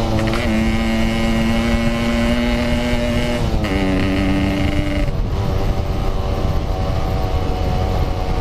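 Motorcycle engine running at speed, its note mostly steady with a couple of changes in pitch partway through, over a low rumble of wind on the microphone.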